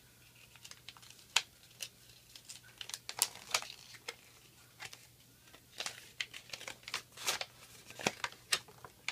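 Toy packaging being handled and opened: irregular short crinkling rustles, with a few sharper crackles.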